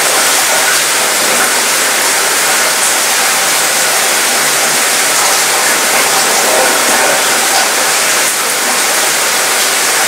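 Steady light rain falling on a cruise ship's mostly metal cabin balcony, the patter rattling around the metal, a little different from rain on a tin roof.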